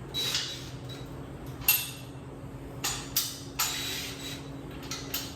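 Irregular metal clicks, clinks and short scrapes as a hand tool works the screws on the steel mounting rails of a DEWALT DWX726 miter saw stand, loosening them just enough for the rails to slide, with one sharp click about a third of the way in.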